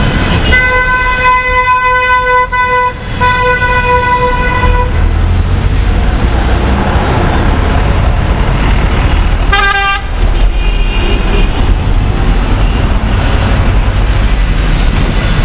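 Vehicle horn honking, one longer blast then several short toots over about four seconds. About ten seconds in, a second, lower horn gives a brief toot. Beneath both runs a steady rumble of wind and traffic noise from riding a moped through the streets.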